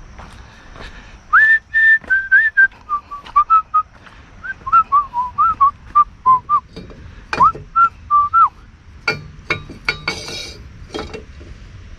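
A person whistling a tune, a string of short held notes with little slides, starting higher and settling lower, stopping about eight seconds in. Scattered clicks and knocks sound throughout, with a few short scraping bursts near the end.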